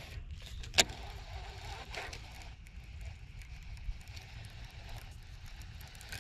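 Baitcasting reel being cranked on a retrieve, with one sharp click about a second in and a couple of fainter ticks later, over a steady low rumble.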